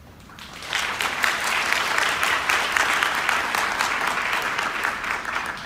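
Audience applauding. It swells up about a second in and fades out near the end.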